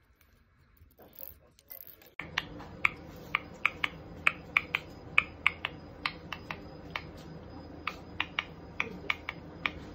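A white-bellied caique making a run of sharp, irregular clicks, about three a second, over a steady low hum that comes in about two seconds in.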